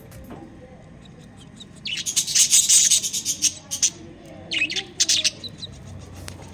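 Lovebirds chirping: a burst of rapid, shrill chirps about two seconds in, the loudest part, then a shorter group of chirps just before five seconds.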